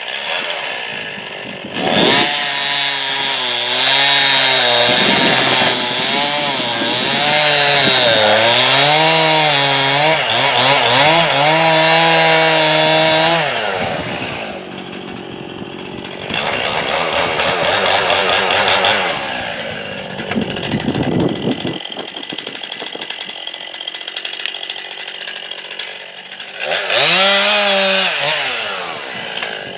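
Chainsaw running at high revs and cutting wood, its engine pitch wavering up and down as the load changes. It eases off a couple of times midway, then revs up again near the end.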